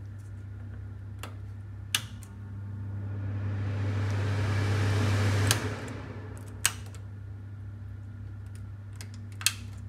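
Teka pull-out cooker hood's extractor fan switched on with a click at its rocker switch: the rush of air builds over about three seconds, then cuts off suddenly with another click. Two more single switch clicks follow, over a steady low hum.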